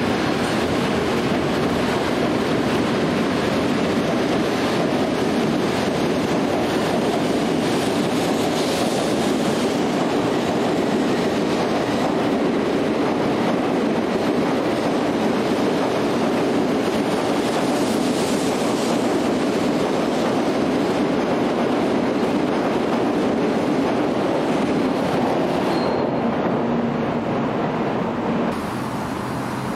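Tokaido Shinkansen N700-series train pulling out along the platform and gathering speed: a steady rush of running and wheel noise. Near the end it drops to a quieter background hum.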